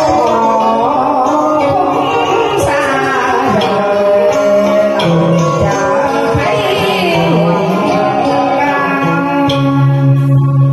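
Vietnamese duet song performed karaoke-style: a singer's voice into a microphone over a backing track of instruments. Near the end the backing settles into a long held low note.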